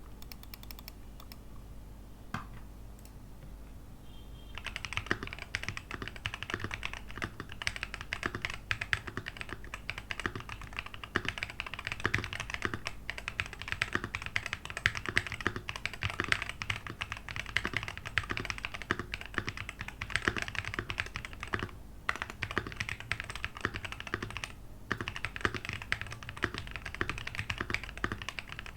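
Typing on a Keychron Q1 aluminium mechanical keyboard with Ajazz green plum switches and double-shot ABS keycaps: a steady run of keystroke clicks. After a single click, the typing starts about four and a half seconds in and breaks off briefly twice near the end.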